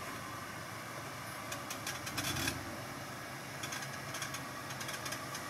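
Off-road 4x4 engine running at a low, steady idle as the vehicle crawls down a rock slab in first gear. Two bursts of crackling clicks come about two and four seconds in, with a low thump between them.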